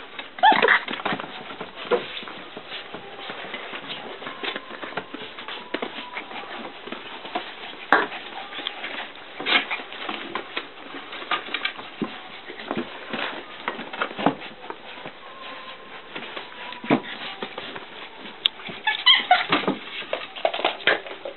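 A litter of puppies playing rough: scuffling and pawing on bedding and plush toys, with a few short yelps, the loudest about half a second in and a cluster near the end.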